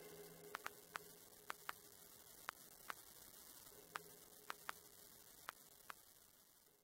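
Near silence: a faint steady electrical hum with about a dozen faint, irregularly spaced clicks.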